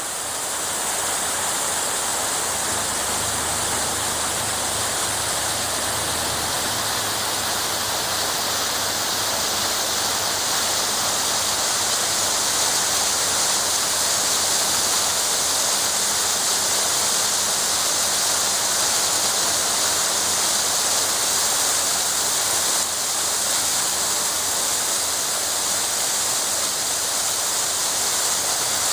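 Small waterfall pouring steadily, a continuous hiss of falling water.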